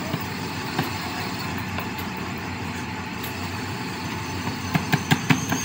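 Steady mechanical background noise, with a quick run of sharp metal clinks and knocks near the end as metal pump parts are handled and fitted onto a cast-iron donkey pump.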